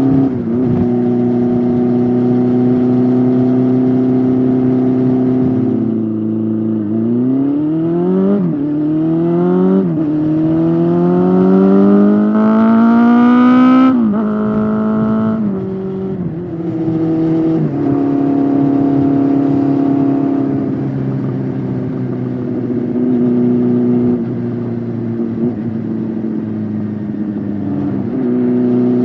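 2006 Honda CB400SF's four-cylinder engine through a Yoshimura slip-on exhaust, running steadily at first, then accelerating hard through the gears about six seconds in: three rising revs, each cut by a gear change, the last climbing highest. It then drops back with a few stepwise falls in pitch and settles into a steady cruise again.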